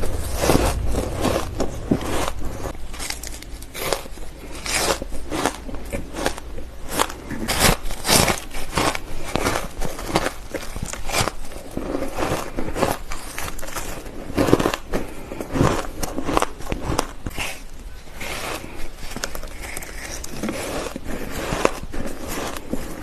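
Ice being bitten and crunched close to the microphone: a continuous run of sharp cracking crunches, several a second.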